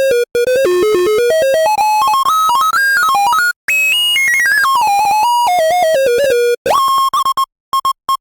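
Electronic music: a bright synthesizer lead plays a fast, stepping melody of short notes with brief dropouts. It ends in a quick stutter of one repeated note that cuts off.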